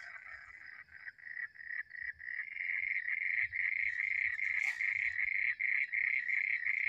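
Frogs calling at night: a steady chorus of repeated short pulsed calls, about three a second, which grows louder a couple of seconds in.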